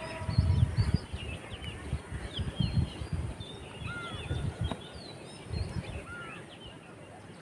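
Small birds chirping with many short, quick calls, over irregular low rumbles that fade away towards the end.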